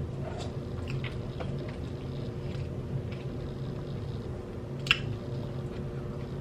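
Faint wet mouth sounds of eating, close to the microphone, with small clicks over a steady low hum; one sharper click about five seconds in.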